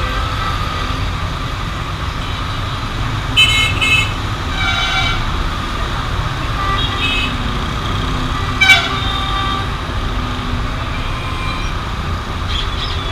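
Busy road traffic running steadily, with vehicle horns honking now and then: several short toots, the loudest about three and a half seconds in and again near nine seconds.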